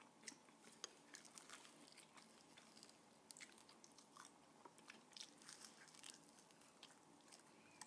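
Faint, irregular crunching and chewing as crispy fried chicken wings in a salted egg coating are bitten and eaten.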